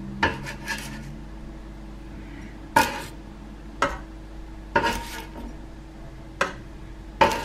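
Kitchen tongs clacking against a metal baking tray and a steel pot while lifting roasted aubergine slices: six or so sharp clacks a second or so apart, with light scraping between them, over a faint steady hum.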